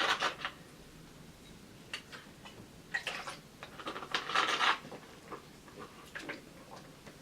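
Scattered clinks and rustles of small objects being handled, as when a drink is fetched, with a longer rustle about four seconds in.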